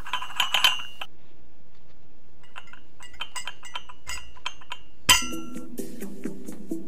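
Light clinks with a short bright ring, like glass or china being tapped: a cluster in the first second and a quicker run in the middle. About five seconds in there is a sharper hit, and sustained background music tones start.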